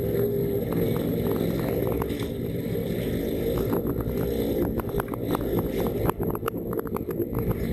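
250 cc motorcycle engine running steadily at low speed while riding, a continuous drone with a quick run of small clicks from about four and a half seconds in.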